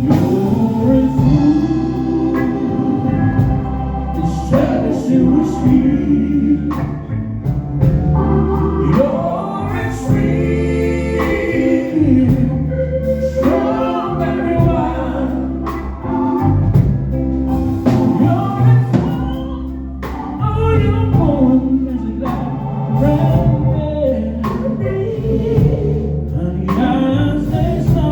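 A live band playing a slow song, with singing voices over a sustained bass line.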